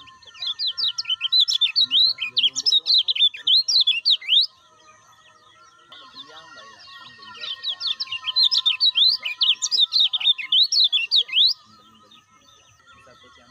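Kecial kuning white-eye singing in two long bursts, each about four seconds of fast, high, sharply sliding chirps, with a quieter pause of a couple of seconds between them.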